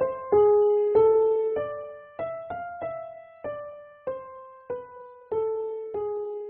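Background music: a slow melody of single piano notes, each struck and left to ring and fade, about one every half second.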